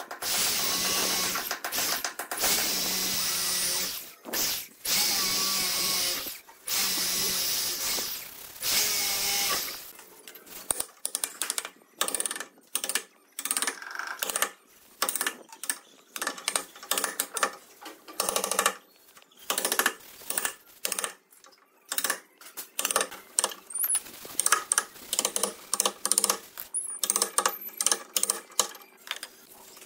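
Electric drill boring into the wooden edge of a door in several bursts that stop and start, its motor holding a steady pitch. From about ten seconds in, a run of short sharp taps and scrapes follows as a chisel cuts the hole out in the wood.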